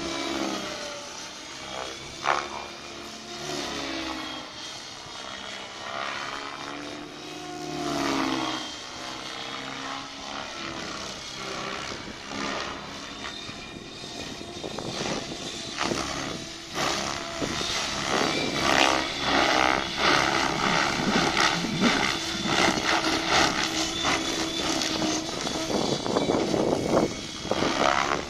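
Radio-controlled model helicopter flying, its motor and rotor whine gliding up and down in pitch as it manoeuvres, growing louder in the second half.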